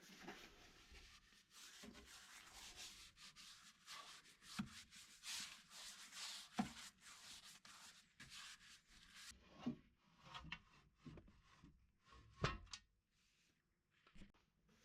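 Faint hand-rubbing strokes across a wooden surface, with a few light knocks.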